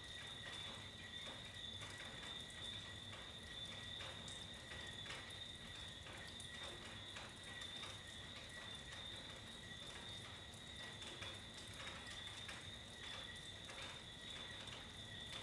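Faint tropical-storm night ambience: scattered soft raindrop ticks and patter over a steady high-pitched drone.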